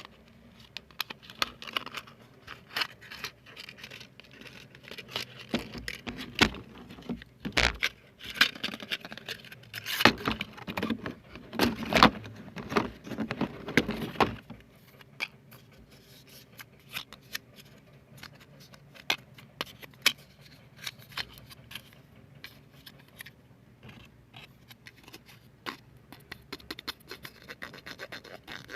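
ASMR trigger sounds close to the microphone: many small irregular taps, clicks and scratches on objects, louder and denser for about eight seconds in the middle.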